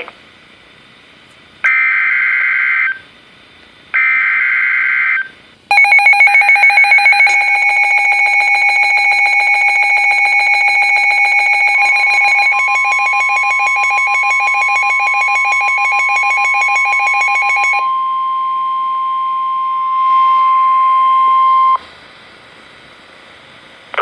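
Emergency Alert System warning on Midland NOAA weather radios: short bursts of screechy digital header data, then the radios' electronic alarm beeping rapidly for about twelve seconds. Partway through, the broadcast's steady Weather Radio warning tone joins in and runs on alone until it cuts off sharply, leaving faint hiss.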